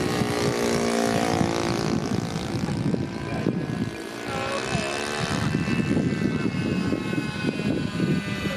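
Amphibious radio-controlled model helicopter in flight overhead: a steady motor and rotor whine whose pitch shifts up and down, dipping briefly near the middle.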